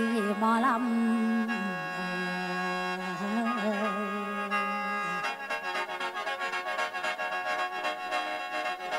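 Khaen, the Isan bamboo free-reed mouth organ, playing a droning chordal interlude of many held notes, with a wavering melody line in the first second. About five seconds in, a quick, light percussion beat joins.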